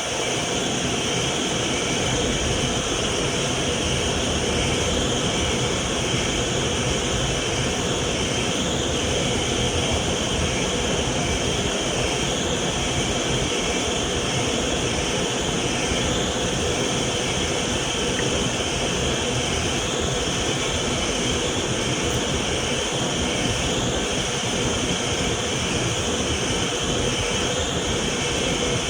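Vacuum cleaner motor running steadily with a constant whine over an even airflow noise.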